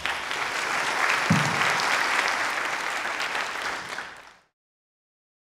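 Audience applauding, cutting off suddenly about four seconds in.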